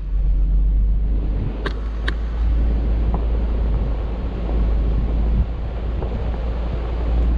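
Vehicle driving on a dirt road: a steady low road-and-engine rumble, with two short sharp clicks about two seconds in.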